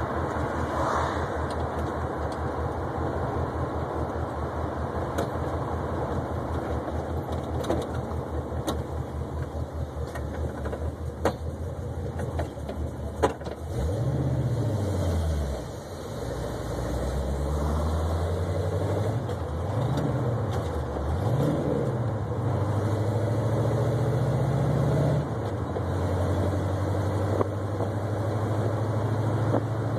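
Oldsmobile 442's V8 engine heard from inside the cabin while driving. It runs steadily at first, then about halfway through the revs fall away. It pulls away again, the revs climbing and dropping three times as it shifts up through the gears, before settling into a steady cruise.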